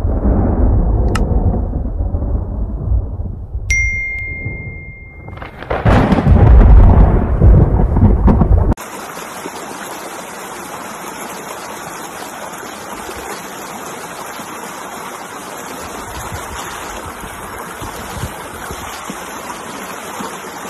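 Thunder rumbling, with a single bell-like chime about four seconds in, then a loud thunderclap that cuts off abruptly. After the cut comes a steady, even rush of a river in spate in the rain, quieter than the thunder.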